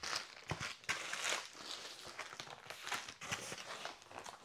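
Plastic packaging wrap rustling and crinkling as it is handled, in irregular short crackles.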